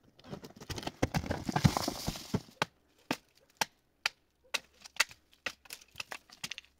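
A dense clatter of hard knocks over a rustle for about two and a half seconds, then sharp single knocks at about two a second, unevenly spaced.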